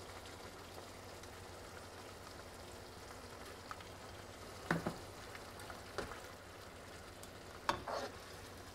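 Tomato and onion sauce sizzling steadily in a frying pan on a gas stove. Metal spoon and skimmer click against the pan and bowl as salt is added and stirred in, with two sharper knocks past the halfway point.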